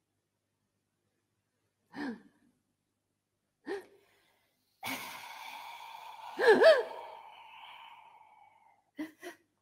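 Wordless human vocal sounds: two short breathy gasps or sighs with a falling pitch, then a longer drawn-out cry that peaks loudly about six and a half seconds in with a quick rise and fall in pitch and trails off, then two short gasps near the end.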